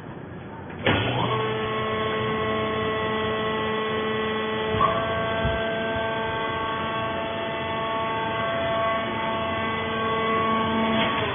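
Hydraulic power unit of a vertical baling press running, its electric motor and pump giving a steady hum-whine while the platen is raised. It starts abruptly about a second in, changes tone briefly about five seconds in, and stops just before the end.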